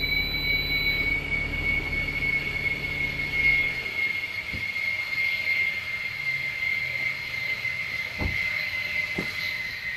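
F-111's TF30 turbofan engines whining steadily as the jet rolls down the runway, the high whine sinking slightly in pitch. A low rumble under it dies away about three and a half seconds in.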